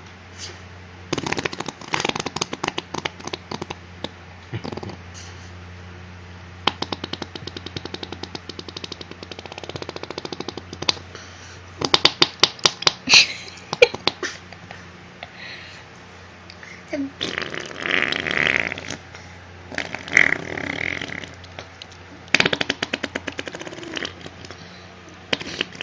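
Imitated fart noises, a run of buzzy, rattling raspberries made one after another with short pauses between them, some longer and louder than others.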